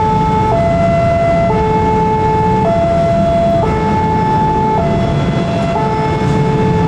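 Electronic railroad crossing alarm sounding its two-tone warning, alternating between a high and a low tone about once a second, over a steady low rumble. The alarm warns of an approaching train while the barrier is down.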